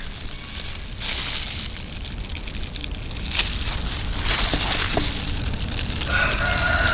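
A rooster crowing, one long call starting about six seconds in, over a steady background hiss with a few faint short bird chirps.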